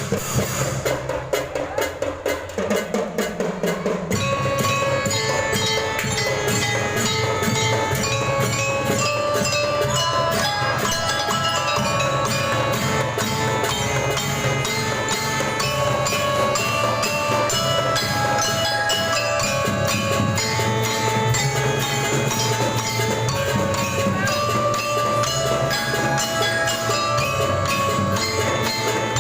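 A school drum band plays, with drums beating a steady rhythm. About four seconds in, a melody of held notes on mallet bells joins over the drums.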